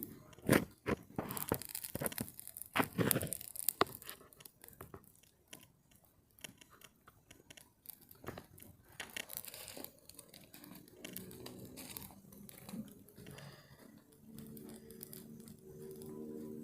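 Dry wood snapping and crackling in irregular sharp cracks, loud and dense for the first few seconds, then sparser. A faint low hum with a steady pitch comes in during the second half.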